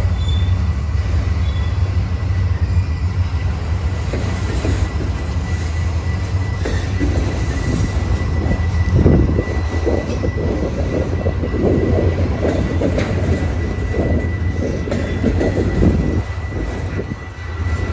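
Freight train of autorack cars rolling past at close range: a steady low rumble of steel wheels on rail, with heavier rattling of the cars through the middle, and a thin steady high tone running throughout.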